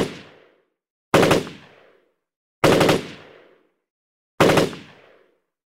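Four short bursts of rapid machine-gun fire, about a second and a half apart, each trailing off in an echo.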